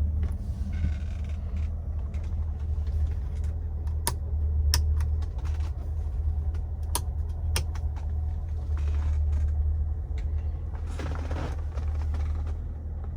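A BMW 325is's inline-six running with a steady low hum, with several sharp clicks over it and a brief hiss near the end.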